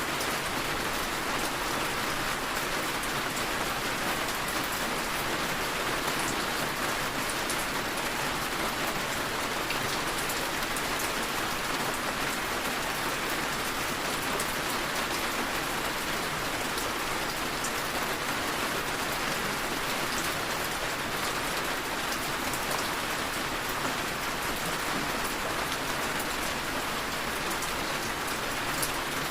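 Steady rainfall, with fine scattered drop ticks: rain tapping on a window.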